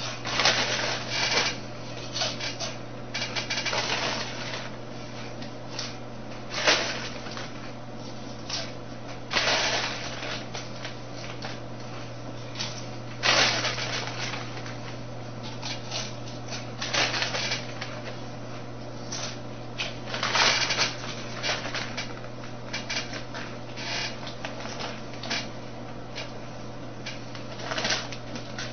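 Foil bag of Lay's Kettle Cooked potato chips crinkling and rustling as a hand digs into it, mixed with chips being crunched, in irregular crackly bursts over a steady low hum.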